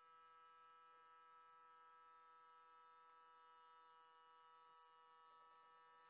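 Faint, steady electric-motor whine with several held tones, from a small motorised display turntable turning slowly.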